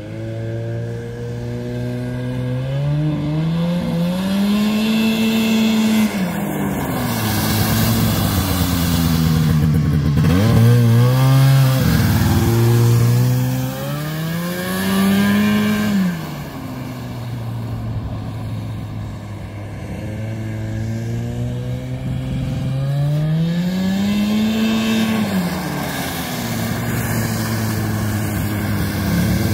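1976 Arctic Cat Jag 3000 snowmobile's two-stroke engine revving up and settling back to idle about four times, each rev lasting a few seconds. It is running on its second fuel filter after the first clogged with rust.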